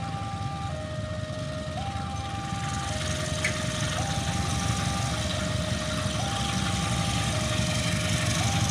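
Diesel locomotive engine rumbling and growing louder as it pulls away hard, working on the climbing grade out of the station. A level-crossing alarm sounds throughout, switching between a higher and a lower tone about every second.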